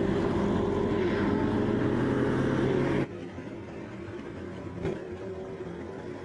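Motorcycle engine running at a steady cruise, heard loud from a camera on the bike. About three seconds in it cuts off abruptly to a quieter sound of motorcycles riding, with a single click near five seconds.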